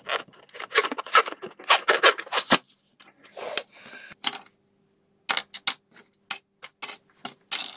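Inflated rubber balloon squeaking and rubbing under the fingers, then a short hiss of air as it is let down, followed by a run of sharp clicks and taps, about two a second.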